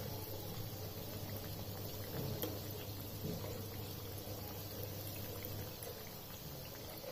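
Chirote pastries deep-frying in oil on a low flame, a steady gentle bubbling, with a few faint clicks from a spoon turning them in the pan.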